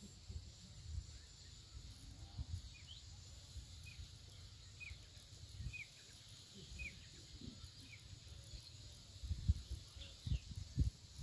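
A bird giving short, high chirps roughly once a second, over a low rumble with soft thumps that grow louder near the end.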